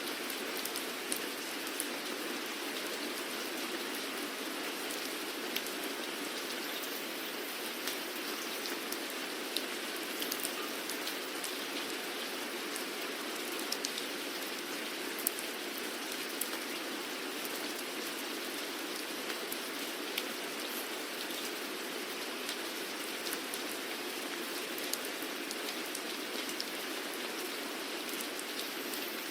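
Steady rain falling, an even hiss with scattered sharper ticks of individual drops hitting a surface.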